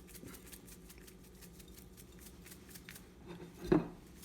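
A man coughing once, short and sharp, near the end, set off by ground pepper in the air as he seasons the meat.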